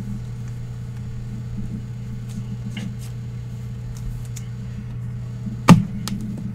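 Trading cards handled by gloved hands: a few light clicks and one sharp knock near the end, over a steady low hum.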